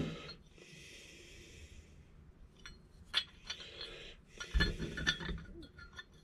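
Chainsaw crankshafts being handled and compared: light metal clinks and knocks, with a short clattering run of knocks a little past halfway. A soft breath comes about a second in.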